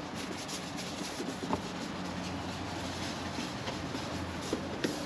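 Steady low hum of the garage background, with faint rubbing and a few light taps as a hand wipes down the plastic engine-bay panel.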